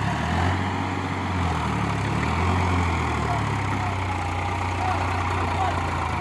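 New Holland 3600 tractor's diesel engine running steadily with a low hum, working under load as it pulls a trailer heavy with rocks through mud; its pitch wavers a little in the first few seconds.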